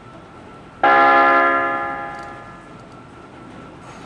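Seibu 6000 series train's horn sounding one short blast, starting suddenly about a second in and fading away over a second or two.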